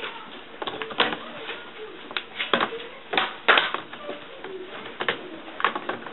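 Plastic screen bezel of an HP Envy dv6 laptop being pressed onto the display lid, its clips snapping into place in a string of sharp, irregular clicks.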